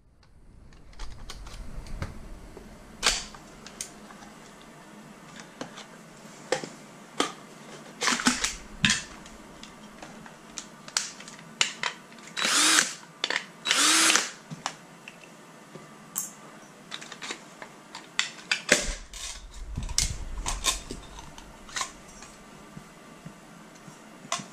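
A cordless drill runs in a few short bursts of about half a second, the two loudest close together around halfway through. Between them come scattered clicks and knocks of the marker's plastic and metal parts being handled and set down.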